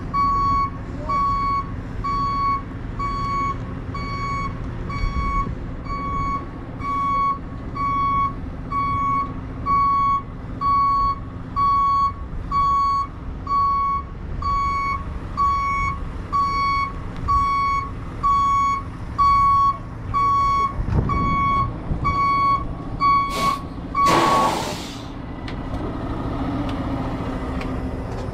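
Heavy tow truck's back-up alarm beeping about once a second while the truck reverses, over its diesel engine running. Near the end the beeping stops and the air brakes let out a short loud hiss as the truck is set, leaving the engine running.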